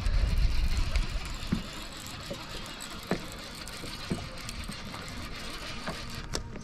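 Wind buffeting the microphone, heaviest in the first second, over a steady hiss of small waves slapping against a boat hull, with a few faint scattered clicks.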